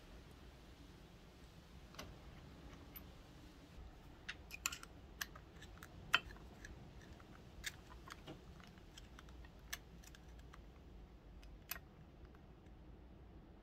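Faint, irregular small metal clicks and ticks, busiest in the middle, as a steel pick and washers are worked onto the clutch shaft in an open pit bike engine case.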